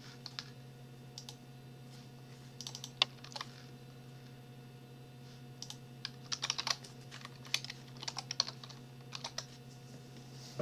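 Computer keyboard typing in scattered bursts of keystrokes, with quick runs of keys about a third of the way in and again past halfway. A low steady hum runs underneath.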